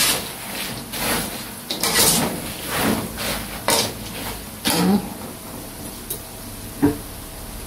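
Wire-mesh skimmer scraping and stirring fried peanuts in a large aluminium wok, the peanuts clattering against the metal in about six strokes roughly a second apart. A single sharp knock near the end.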